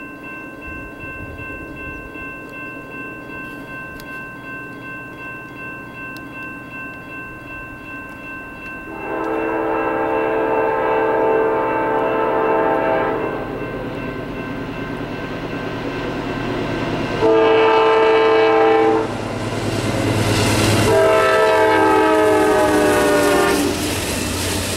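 A crossing bell rings steadily. Then the horn of a Norfolk Southern GE Dash 9-40CW locomotive sounds three blasts: a long one about nine seconds in, a shorter one, then another long one. The locomotive's diesel rumble swells as it passes.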